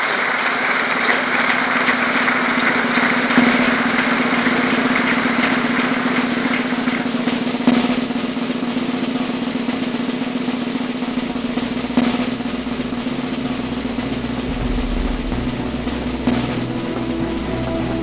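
Applause dying away in the first seconds into a sustained drum roll over a steady low drone, with a sharp hit about every four seconds. A deep bass pulse comes in during the second half, building toward music.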